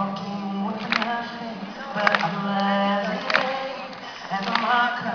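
A man sings a nasheed through a microphone, holding long, drawn-out notes, with a hand drum struck about once a second.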